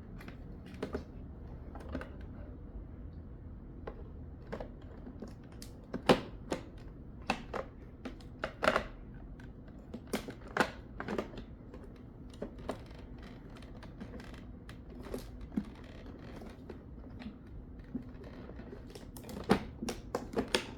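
Irregular plastic clicks and knocks as parts of a Hoover carpet shampooer are handled and fitted together, coming in bunches with pauses between.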